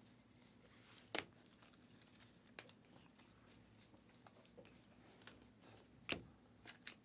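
Quiet handling of a stack of trading cards: light clicks and snaps as cards are slid and flicked over one another. The clearest comes about a second in and another about six seconds in.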